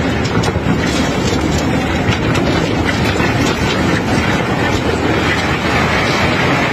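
Heavy unloading machinery running steadily while cobblestones rattle and clatter, giving many small scattered clicks over a continuous mechanical rumble.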